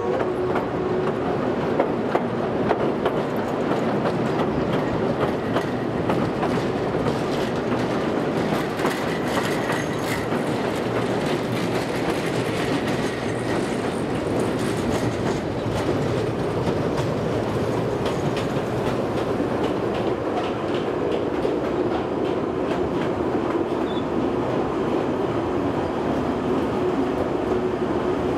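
Kurobe Gorge Railway trolley train running along the track, a steady rumble of wheels on rail with clickety-clack over the rail joints.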